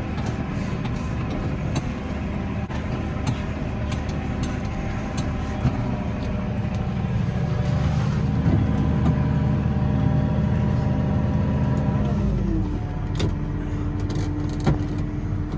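Tractor engine running steadily while pulling a lime spreader; about twelve and a half seconds in its note changes and settles at a new steady pitch, followed by a couple of sharp clicks.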